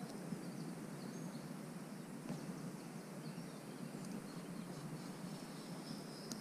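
Faint outdoor pond-side ambience: a steady low rumble, with a few short bird chirps and, near the end, a thin high insect trill.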